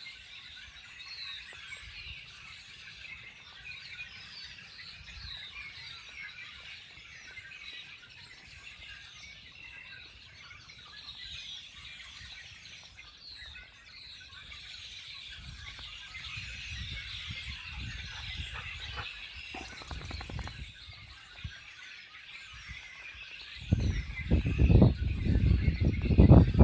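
A large flock of red-winged blackbirds calling together from one tree, a dense, unbroken chorus of overlapping chirps and trills. Near the end, a loud low rumble on the microphone comes in over the birds.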